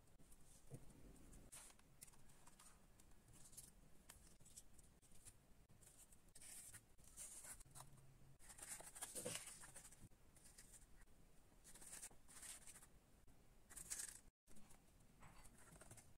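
Faint, intermittent rustling and scraping as hands handle cardboard and craft-foam pieces.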